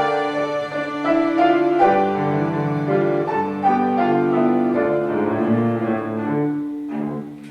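A bowed string instrument and piano play the closing phrases of a slow piece, with held notes. The sound dies away near the end as the piece finishes.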